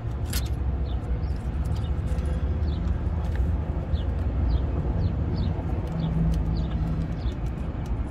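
A steady low rumble of traffic with a small bird chirping over it, short falling chirps about twice a second. A few sharp clicks near the start come from handling the wiring and parts.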